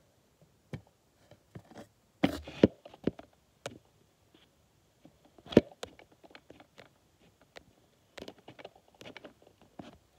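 Irregular light taps and clicks of close handling against a hard plastic container, with a few sharper knocks about two seconds in and one about halfway through, then a run of small ticks near the end.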